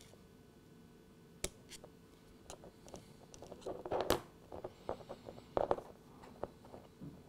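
Faint scattered clicks and small scrapes of precision screwdrivers and fingers working a plastic OO gauge model locomotive bogie, prising a wheel off its axle. There are a few louder clicks about four and five and a half seconds in.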